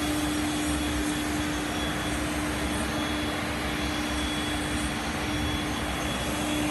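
A machine running steadily: an even rushing noise with a constant hum and a faint high whine.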